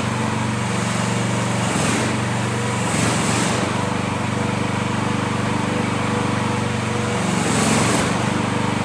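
New Future FT15 mini excavator's engine running steadily, with a few brief louder surges of hiss.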